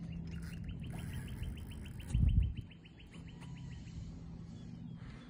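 Fishing reel clicking in a steady, even run of about eight clicks a second while a hooked tarpon pulls on the line. The clicking stops about four seconds in, and a brief low thump a little after two seconds is the loudest sound.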